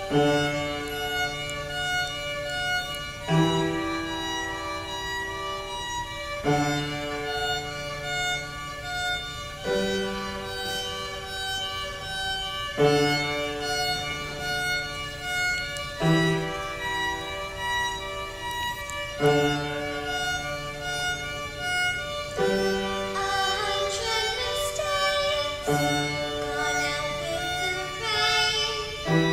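Violin playing a slow melody over piano chords, with a new chord struck about every three seconds.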